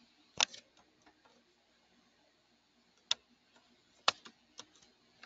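A few sharp, isolated clicks of computer keys being pressed, spaced irregularly with gaps of up to a few seconds, the loudest about half a second in, about three seconds in and about four seconds in.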